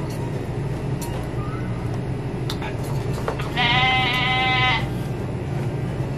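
Cup-noodle eating sounds, with soft clicks of slurping and chewing over a steady low hum. About three and a half seconds in comes a high, slightly wavering, bleat-like sound lasting about a second, the loudest thing heard.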